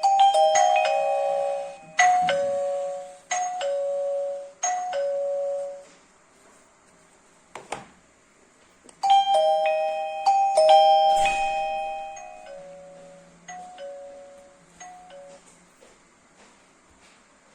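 Wireless doorbell chime of a TMEZON video doorbell system playing its electronic ringtone, a short tune of bell-like ding-dong notes. One play ends, then a click, then the tune plays again about 9 seconds in and fades away.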